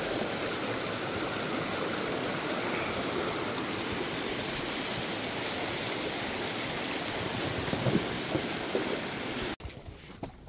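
Shallow mountain creek running over rocks, a steady rushing of water, with a few faint knocks near the end. It cuts off abruptly about nine and a half seconds in, leaving a much quieter stretch.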